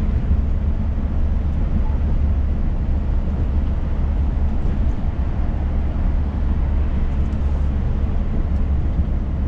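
Inside the cab of a Scania S500 truck cruising on the highway: a steady low engine drone mixed with an even rush of road and tyre noise.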